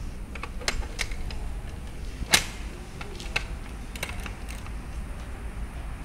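Keyless combination mailbox lock worked by hand: a series of small sharp clicks from its number wheels and knob, with one much louder clack a little over two seconds in.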